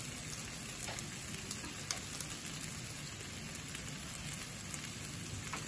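Eggs and tortilla pieces sizzling steadily in a frying pan on the stove, with faint scattered crackles.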